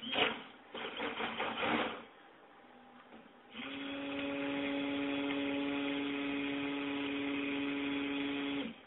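Stick (immersion) blender running steadily in a bowl of cold process soap batter, mixing in titanium dioxide white. The motor starts about three and a half seconds in, hums for about five seconds and cuts off sharply near the end. Before it comes a couple of seconds of irregular scraping and clatter in the bowl.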